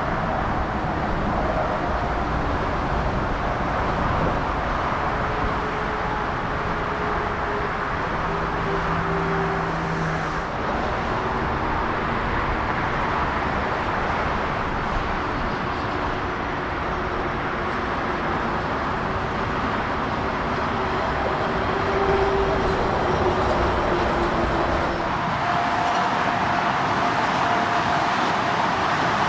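Steady jet aircraft engine noise from airport ground operations, engines at low power as on a taxiing or idling airliner, with faint whining tones that drift slightly in pitch.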